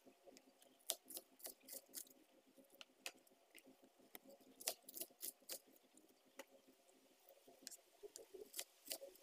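Faint, irregular light clicks and taps, a few to several a second, over a faint steady hum.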